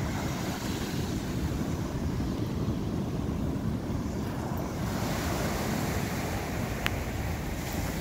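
Ocean surf breaking and washing up the sand in a steady wash, with wind buffeting the microphone. A brief sharp click near the end.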